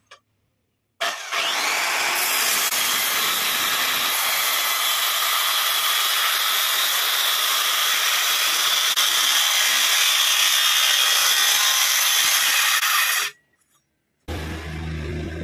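Handheld electric circular saw spinning up with a rising whine about a second in, then cutting through a thick wooden beam, a steady loud whine and rasp for about twelve seconds that cuts off abruptly.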